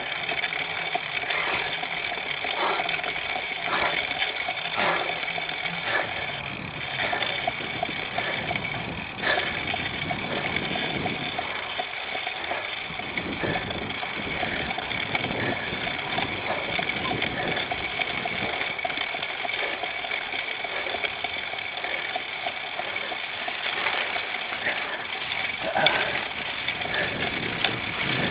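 Cyclocross bike ridden hard over rough ground. A steady rush of wind and tyre noise is broken by many short knocks and rattles as the bike is jolted.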